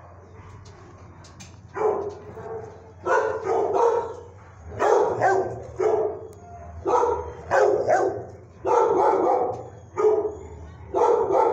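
Dog barking repeatedly in a shelter kennel, loud bark after bark starting about two seconds in.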